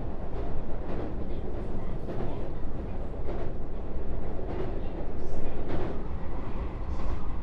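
Cabin running sound of a JR 221 series electric train, recorded in its motor car: a steady rumble of wheels on rail, with a few faint clicks.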